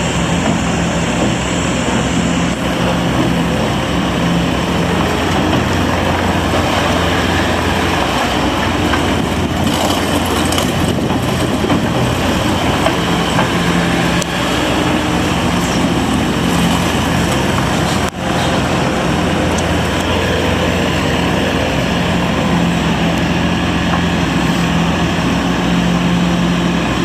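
Bobcat T595 skid steer loader's diesel engine running steadily with an even, low hum, with a momentary break about two-thirds of the way in.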